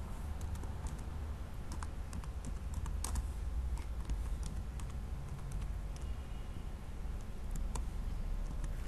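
Typing on a computer keyboard: scattered keystrokes at an uneven pace, over a steady low hum.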